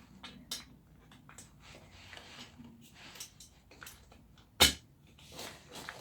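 Chair caster wheels being handled and pushed into the plastic chair base: small clicks and rustles, with one loud sharp knock a little past halfway.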